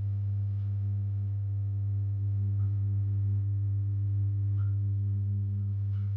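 A steady low hum, unchanging in pitch, with faint light ticks about every two seconds.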